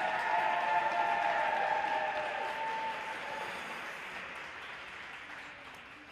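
Rink-side audience applauding, with held cheering voices over it for the first three seconds; the applause dies away gradually.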